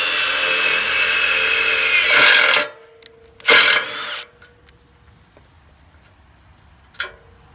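Milwaukee M18 cordless impact driver drilling a self-tapping screw into the hoop's steel arm: a steady, loud motor whine for nearly three seconds, then a second short burst about three and a half seconds in.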